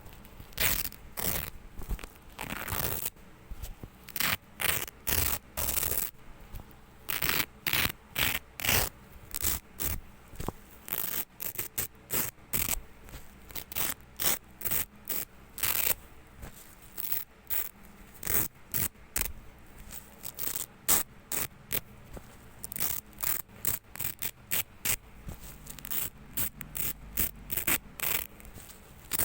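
Velcro hook-and-loop tape being pulled apart again and again, a long series of short tearing rips, some quick and some drawn out, coming in uneven runs.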